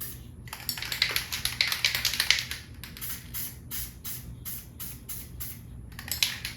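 Aerosol spray can spraying in a long hissing burst starting about half a second in and lasting about two seconds, then a shorter burst near the end; the new can is spraying well after a bad previous can. Background music with a steady ticking beat runs underneath.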